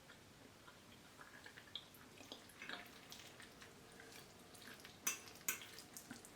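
Faint, scattered clinks and light taps of dishes and cutlery during a meal of chapati and beans, with two louder clicks about five seconds in.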